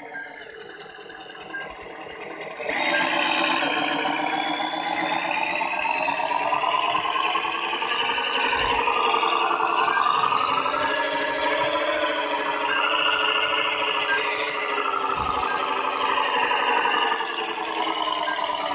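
Motor and gearbox of a rock-loaded radio-controlled Hino 700 dump truck whining and grinding as it crawls through mud. The sound jumps louder about three seconds in, and its pitch slowly rises and falls.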